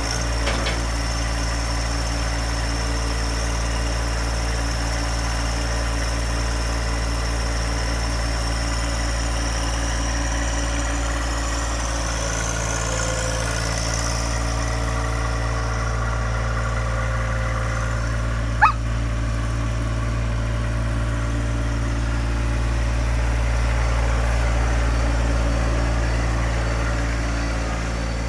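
A John Deere 1025R compact tractor's three-cylinder diesel engine running steadily while the tractor works its front loader and drives off. A single short, sharp click sounds about two-thirds of the way through, and the engine grows a little louder shortly before the end.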